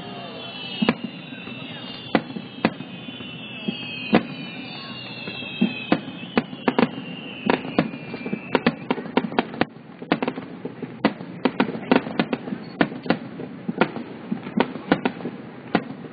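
Fireworks display: aerial shells bursting with sharp bangs, a few seconds apart at first, then coming fast and overlapping from about halfway in.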